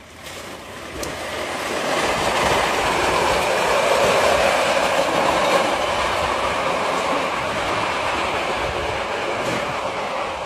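A plastic crate loaded with glass beer bottles sliding down a steep concrete street with a man riding on it, making a steady rough grinding rattle. The sound builds over the first couple of seconds as the crate picks up speed, then holds.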